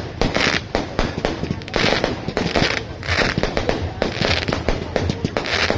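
Fireworks going off in quick succession: a dense run of bangs and crackles, with repeated half-second spells of hissing.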